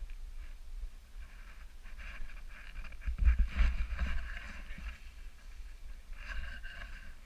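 Snowboard sliding and carving over snow, its edge scraping and hissing on the surface, with wind buffeting the microphone as a low rumble. It is loudest a little past halfway through.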